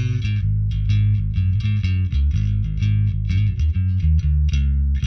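Electric bass played through an MTI-era Ampeg SVT tube head into an Ampeg 8x10 cabinet: a quick, steady run of plucked notes with a strong low end and a bright attack on each note. The tone is set with treble and bass all the way up, mids all the way down and the ultra low switch raised for a deeper tone.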